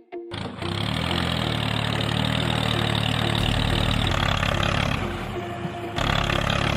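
A small engine cuts in abruptly just after the start and runs steadily, changing note a little about four seconds in and again near six seconds.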